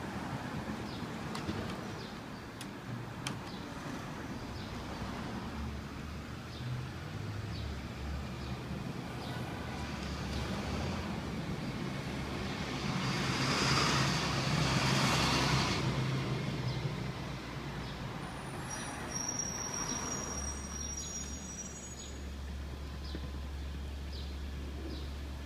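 Street traffic: a steady low rumble, with a vehicle passing and swelling loudest about halfway through.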